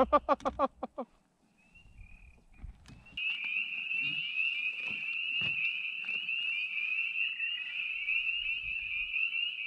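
A steady, high-pitched trilling chorus of frogs starts abruptly about three seconds in and carries on, with a couple of dull knocks beneath it. Before that, the opening second holds a short run of rapid pulses.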